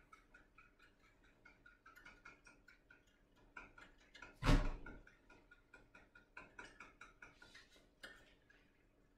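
Rapid light ticking, several small clicks a second, with one loud thump about halfway through.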